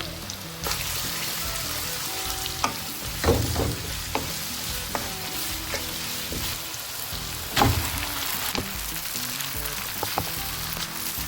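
Food sizzling as it is stir-fried in a hot pan, with a few sharp knocks of a utensil against the pan, the loudest about three and seven and a half seconds in.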